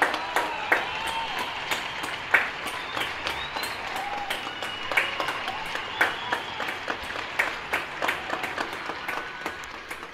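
Many people clapping from balconies across the city, scattered claps mixed with several whistles, thinning out near the end: the nightly lockdown applause for health workers.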